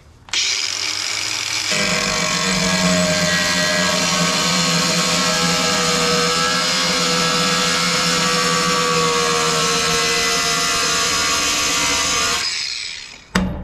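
Ryobi angle grinder with a 1 mm cutoff wheel running steadily while cutting through the aluminium dash panel, a continuous loud whine that fades away near the end as the grinder is switched off.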